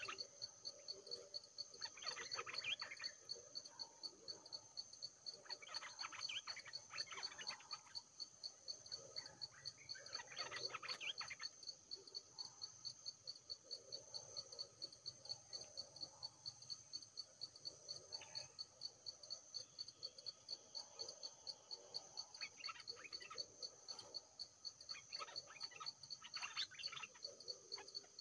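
Forest ambience: a steady, high, pulsing chorus of calling insects or frogs, with bursts of bird calls every few seconds, the loudest about a third of the way in and again near the end.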